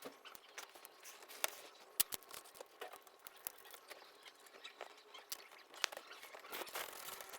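Irregular small clicks and taps of a Lenovo G570 laptop's plastic case parts being handled and fitted together during reassembly.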